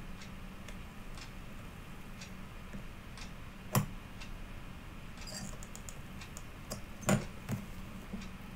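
Scattered light ticks and clicks from hand-soldering through-hole pins on a small circuit board, with two sharper clicks about four and seven seconds in, over a faint steady hum.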